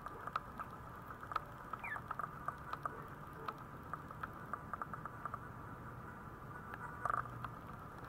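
Nine-day-old Maltese puppy making tiny squeaks among a run of small irregular clicks, with a brief rising squeak about two seconds in and a louder short squeak about seven seconds in.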